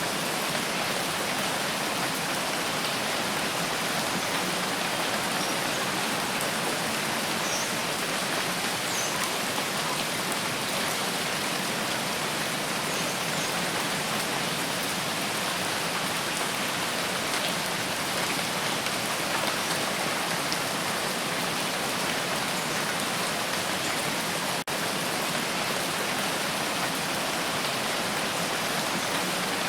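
Steady heavy rainfall, an even rushing hiss of rain on surfaces, with one momentary dropout about three quarters of the way through.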